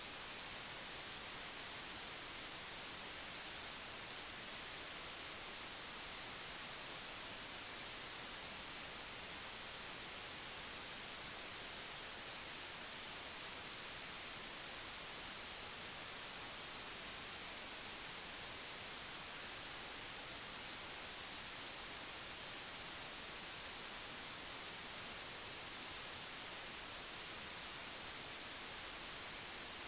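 Steady, even static hiss, strongest in the high frequencies and unchanging throughout, with no other distinct sounds.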